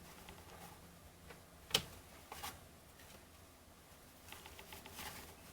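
Baseball trading cards being handled and flipped through, faint rustling and sliding, with one sharp click a little under two seconds in.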